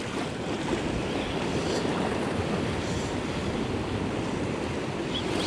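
Sea swell washing and foaming against a rock ledge, a steady rush of surf, with wind on the microphone.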